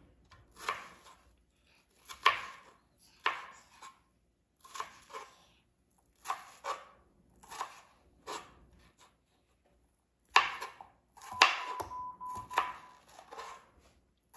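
Kitchen knife chopping a yellow bell pepper on a cutting board: sharp chops about once a second, a short pause after the middle, then a quicker run of chops near the end.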